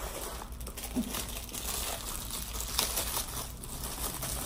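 A WagWellie dog boot crinkling as it is handled and worked onto a dog's paw, an irregular crackle with many small sharp ticks.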